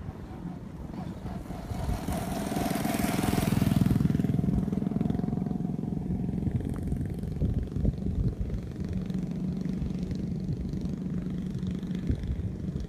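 A small engine drones steadily, swelling with a rush of wind noise about two to four seconds in, then running on evenly.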